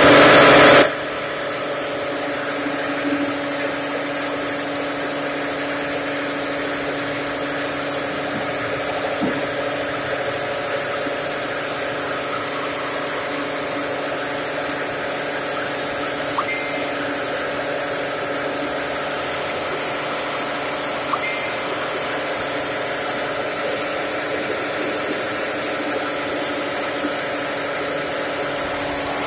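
Motor-driven flour mill running steadily and grinding grain into flour, giving a continuous even mechanical hum. A short, very loud burst of noise in the first second is the loudest thing heard, and there are a few faint clicks later on.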